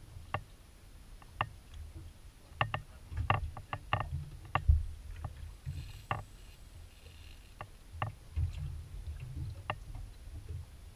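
Small aluminium boat on the water: water slapping against the hull, with irregular knocks and clicks and a low rumble, the loudest a thump about halfway through.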